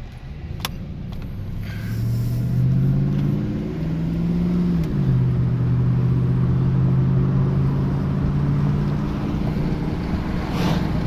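Car engine accelerating, its pitch rising for a few seconds, then dropping sharply as the transmission shifts up about five seconds in, and holding steady afterwards. A single click comes near the start.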